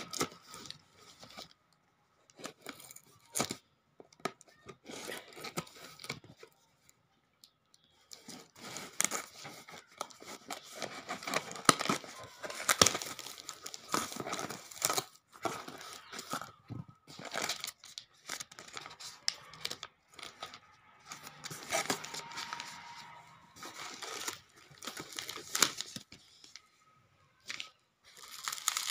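A taped, plastic-wrapped cardboard parcel being torn open by hand, with plastic and paper packaging crinkling. The sound comes in irregular bursts with a few short pauses.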